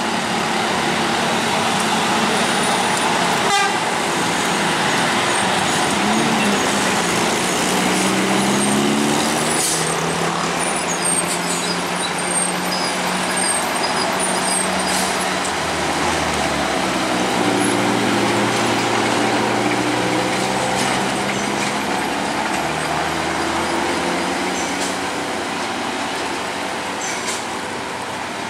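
Heavy traffic labouring up a steep mountain hairpin: a large coach's diesel engine pulls under load, its pitch rising and falling as it climbs, with other engines and horn honks mixed in.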